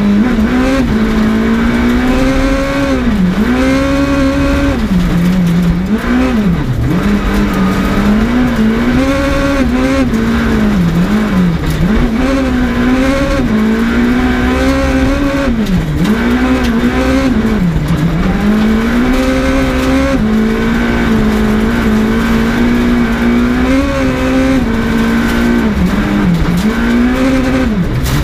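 Skoda Fabia S2000 rally car's naturally aspirated 2.0-litre four-cylinder engine heard from inside the cabin at full stage pace, revs climbing and dropping again and again with quick dips for gear changes and lifts into corners, over a steady rumble of tyres on gravel.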